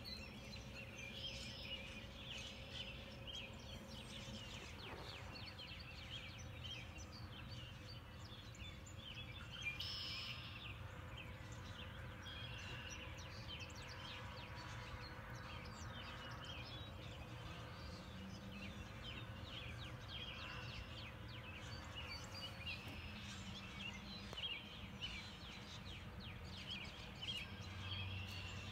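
Mixed wild birds chirping and calling over one another, many short calls throughout, over a steady low background hum.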